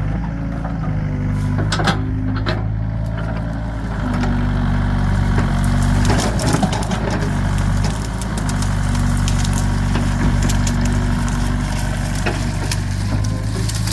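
Excavator engine running steadily, with repeated cracking and snapping of wood being crushed, which grows busier and louder about four seconds in.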